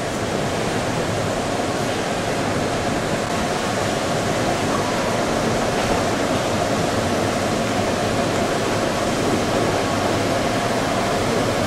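Steady rushing noise of water in an indoor swimming pool, echoing in the hall.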